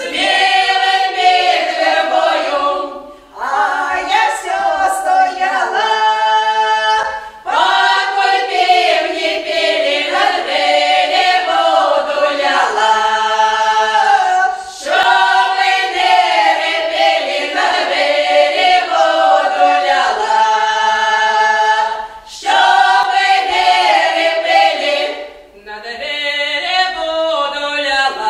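Women's folk choir singing a Belgorod-region South Russian village song a cappella, several voices in close harmony, in long phrases with short breaks between them.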